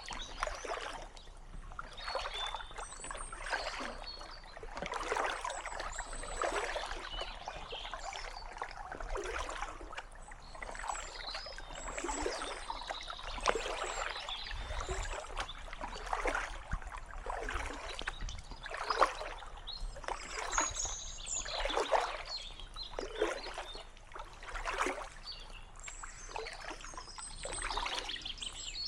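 Kayak paddle blades dipping into calm canal water, a splash from each stroke, about one every second and a half, with water trickling off the blades in between.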